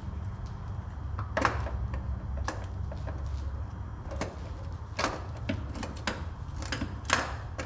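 The old starter motor of a 2014 Dodge Dart 2.4 being wiggled and pulled free from the engine: about half a dozen separate metal clunks and scrapes over a steady low hum.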